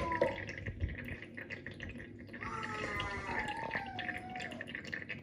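Water trickling and dripping as it drains through the filter cartridge of a BRITA Flow XXL water filter tank. A sharp click at the very start, and a voice in the background about halfway through.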